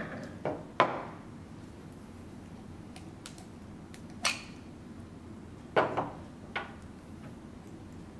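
Sharp clicks and knocks of clear plastic chamber cylinders, caps and bottom plateaus being handled, pulled apart and set down on a tabletop. There are three in the first second, one about four seconds in, and three more around six seconds.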